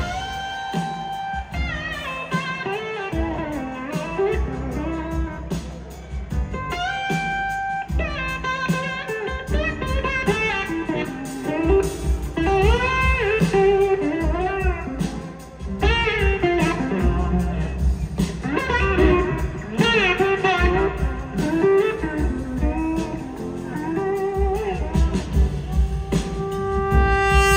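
Live rock band music led by an electric slide guitar solo on a Gibson SG, its notes gliding and bending up and down over the rest of the band.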